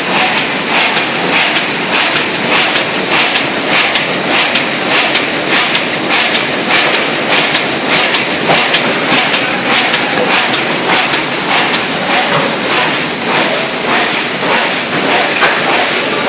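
Brausse automatic die-cutting machine running, a steady rhythmic clatter with sharp strokes a few times a second.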